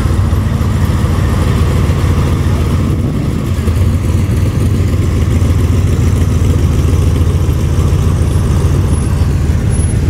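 C3 Chevrolet Corvette's V8 running through side-exit exhaust pipes, a steady deep sound as the car creeps past at walking pace.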